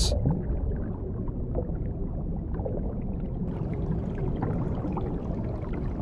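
Underwater ambience: a steady, muffled low rumble of moving water, with a faint hiss joining about three and a half seconds in.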